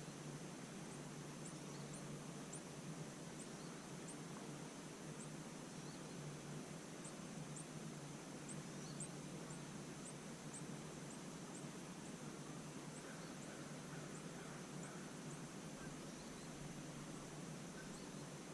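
Faint early-morning outdoor ambience: a steady soft hiss under a constant high-pitched insect drone, with a run of thin, very high chirps repeating irregularly, about one or two a second, that die away in the last few seconds.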